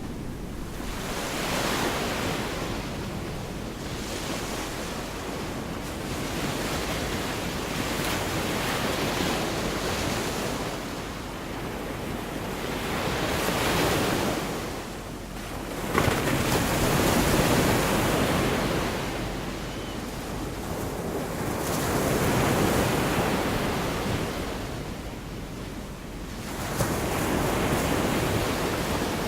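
Gulf of Mexico surf washing onto the beach, the waves swelling and fading every few seconds, with wind on the microphone. A brief sharp tap comes just past halfway.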